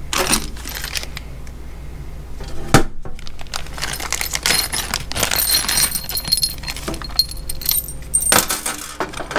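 Small loose metal hardware, bolts and Allen keys, clinking and jingling in the hand, with a plastic parts bag crinkling. There is one sharp knock about three seconds in.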